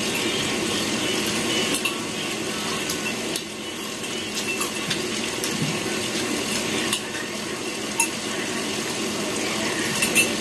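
Forks and spoons clicking against ceramic plates and glasses now and then as people eat, over a steady background hiss.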